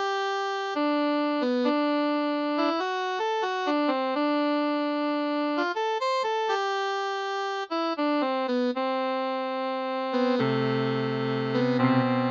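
Outro tune played on a Casio CTK-2550 electronic keyboard with an electronic saxophone voice: a melody of held notes, joined by a lower accompaniment about ten seconds in.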